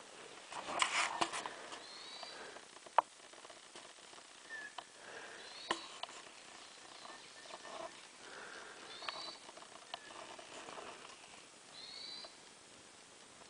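A bird outside repeating a short, high call about every three seconds. There is rustling close to the microphone, loudest about a second in, and a single sharp click about three seconds in.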